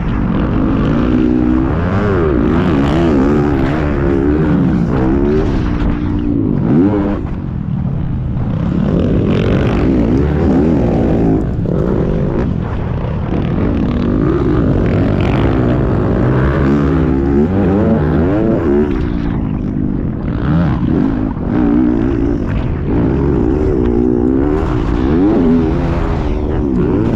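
Dirt bike engine revving hard as it is ridden round a motocross track, its pitch climbing and dropping again and again through shifts and corners.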